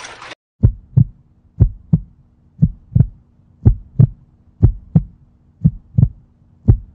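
Heartbeat sound effect: paired lub-dub thumps about once a second, over a faint steady hum. A burst of noise cuts off right at the start.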